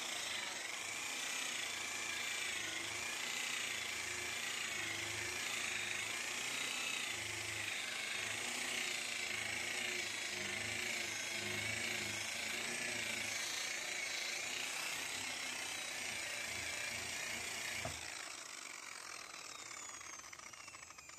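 Electric sander running with its pad pressed against the oxidized fiberglass gelcoat of a sailboat hull, its motor pitch wavering as the pressure changes. It is switched off about 18 seconds in and winds down with a falling whine.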